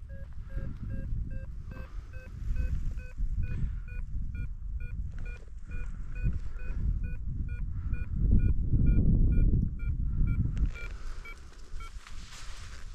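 A rapid, regular series of short beeps, several a second, stopping shortly before the end, over an uneven low rumble.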